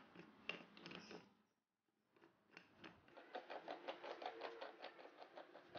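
Wooden knob being turned by hand on a threaded steel rod, giving a quick, even run of small clicks, several a second, from about two and a half seconds in. A short burst of clicks and handling comes first.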